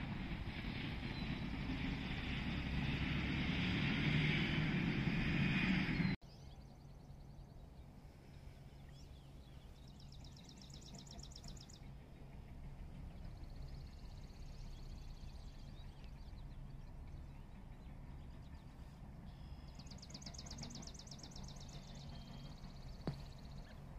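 Outdoor ambience: a loud rumble of passing traffic builds and cuts off suddenly about six seconds in. A quieter steady hum follows, with a rapid high trill heard twice.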